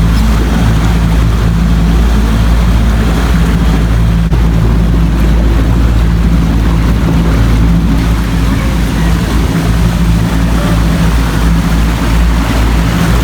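Small boat's motor running steadily while under way, with wind rumbling on the microphone and rushing water.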